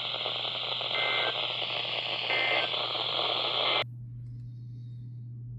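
Weather radio receiver hiss carrying two short Emergency Alert System end-of-message data bursts, brief two-tone chirps that mark the close of the alert. A little under four seconds in, the static cuts off suddenly and leaves a low steady hum.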